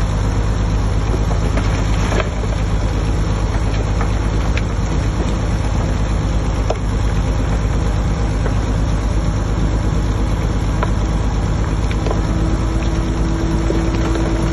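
Heavy earthmoving machine's diesel engine running steadily with a strong low hum, with a few scattered small knocks; a steady tone joins about twelve seconds in.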